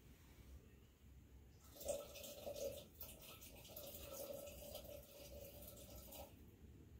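Water poured slowly from a bamboo ladle (hishaku) into an iron tea kettle: a faint, steady trickle lasting about four and a half seconds, starting about one and a half seconds in and stopping shortly before the end.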